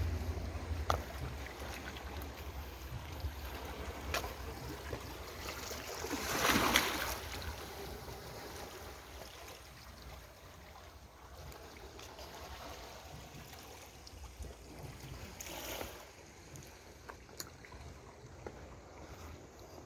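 Sea waves washing and splashing against a harbour breakwater, with wind rumbling on the microphone. One wave rushes in loudly about six seconds in, and a smaller one comes near the end.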